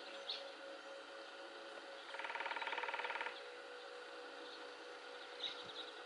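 Nuttall's woodpecker drumming: one fast, even roll of taps on wood lasting about a second, a couple of seconds in. Short high chirps come near the start and again near the end.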